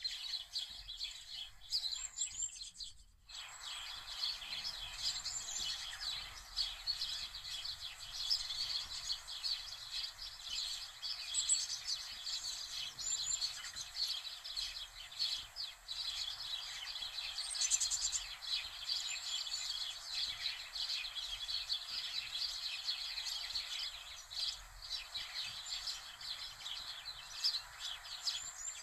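Many small birds chirping steadily in the background, a dense twittering that drops out briefly about three seconds in.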